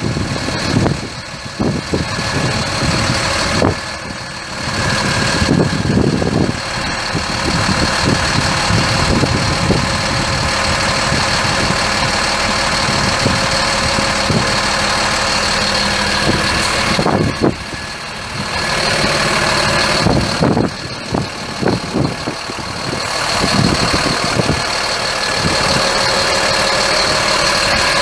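Mercedes-Benz MBE 900 7.2-litre inline-six turbo diesel of a Freightliner M2 106 crane truck idling, with a steady high whine over the engine note.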